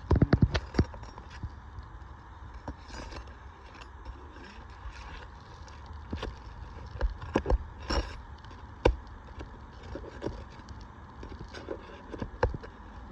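Roofing nails being pried out from under asphalt shingles: irregular metal taps, knocks and scraping as a tool works beneath the shingle tabs, with a cluster of sharper knocks at the start and again about eight and nine seconds in.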